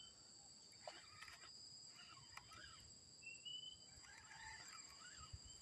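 Faint outdoor animal sounds: a steady high insect drone, with groups of short chirping calls from an unseen animal coming every second or two.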